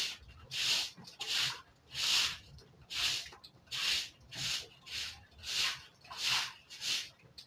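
A floor being swept in steady, even strokes, a short swish about every three quarters of a second.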